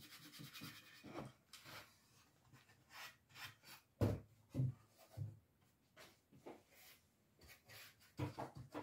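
A wax brush rubbing brown wax into a weathered wooden board, then scattered wooden knocks and thumps as the board is lifted, turned and set back down, the loudest about four seconds in.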